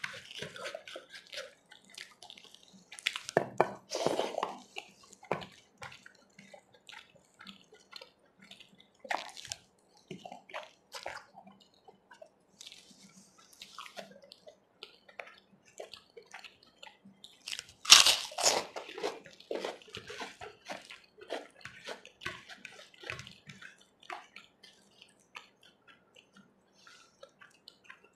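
Close-miked eating sounds: wet chewing and mouth smacks, with fingers squishing and mixing chole (spiced chickpeas) into torn bread on a plate. Irregular short wet clicks, with two louder bursts of sound a few seconds in and about two-thirds of the way through.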